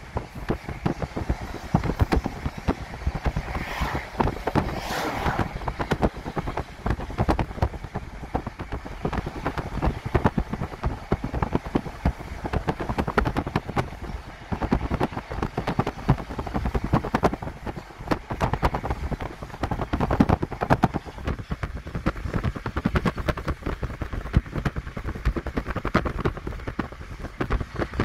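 Steady rumble and clatter of a passing Norfolk Southern double-stack intermodal freight train, mixed with wind buffeting the microphone.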